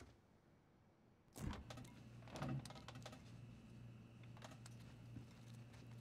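A refrigerator door is pulled open with a thump about a second and a half in. The fridge's steady low hum follows, with small clicks and rattles.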